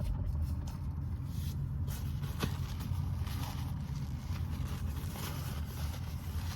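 Car engine running steadily, heard from inside the cabin as a low rumble, with a faint click about two and a half seconds in.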